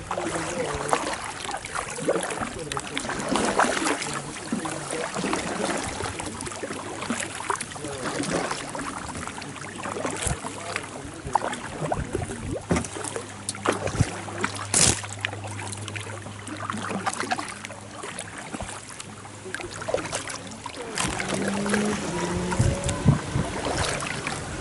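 Double-bladed kayak paddle dipping and pulling through river water: repeated splashes, with water dripping off the blades between strokes.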